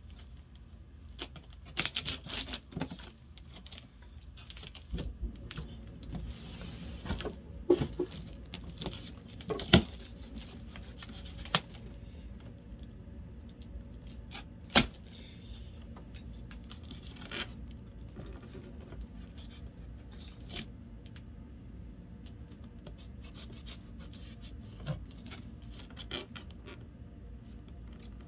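Cardboard shipping box being worked open by hand: scattered scrapes, crinkles and sharp knocks of cardboard and packing. The handling is busiest in the first dozen seconds and sparser after that.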